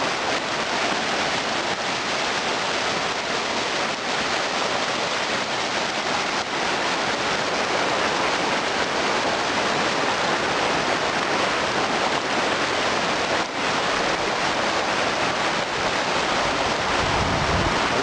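Kamweti River water rushing steadily, a continuous even hiss of fast-flowing water, with a brief low rumble near the end.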